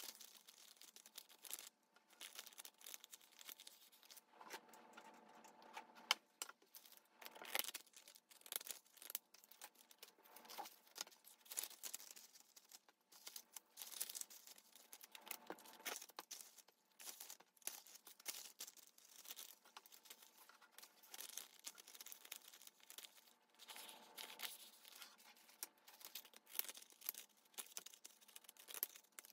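Quiet rustling and crinkling of paper packaging as hands handle paper sheets and a paper packaging bag, in many short, irregular crackles with an occasional sharper tick.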